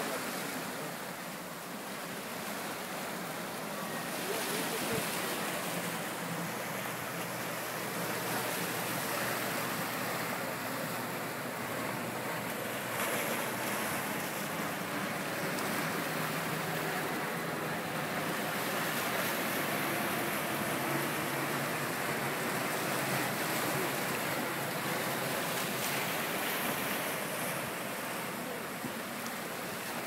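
Sea surf washing and breaking over shoreline rocks, a steady rushing wash of water.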